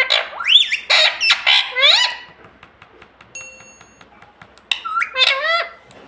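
Pet parrot making a run of rising, warbling squawk calls for about two seconds, then another short burst of calls near the end.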